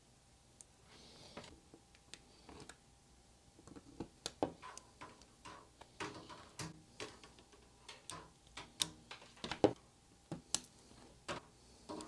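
Utility knife blade scraping and nicking the plastic insulation of 450-ohm ladder line as it is cut away. Faint, irregular clicks and scrapes, more of them from about four seconds in.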